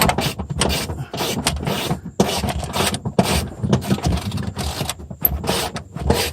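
A 2006 Honda Civic seat being shaken and jostled to line it up on its floor mounting bolts: a rapid, irregular run of metal clunks, rattles and scrapes.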